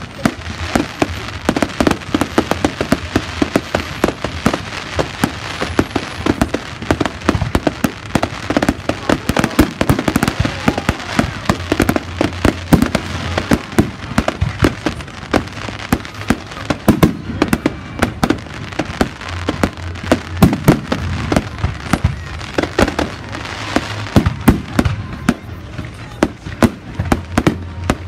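Fireworks display: many shells bursting in quick succession, a dense run of bangs and crackling that goes on without a break.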